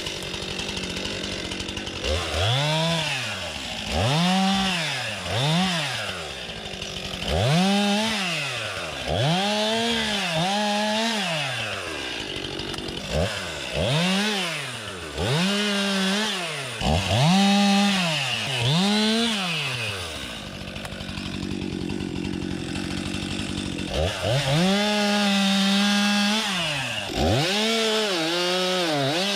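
STIHL MS 261 two-stroke chainsaw limbing: revved in about a dozen short bursts, each rising and dropping back. It drops to a steadier low run for a few seconds about two-thirds through, then revs again and is held at a steady high pitch near the end.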